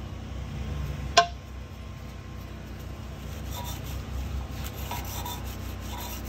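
Wire brush scrubbing old gasket residue off the oil pan sealing surface of the 5.3 LS4 V8's block, in repeated rasping strokes. A single sharp ping about a second in is the loudest moment.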